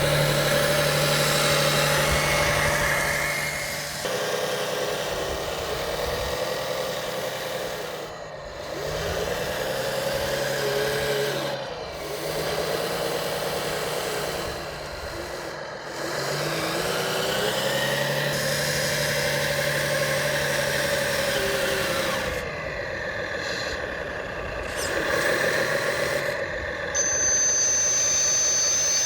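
Electric motors and hydraulic pumps of a radio-controlled hydraulic excavator and 8x8 dump truck whining, rising and falling in pitch in several surges a few seconds long. A thin high whine comes in near the end.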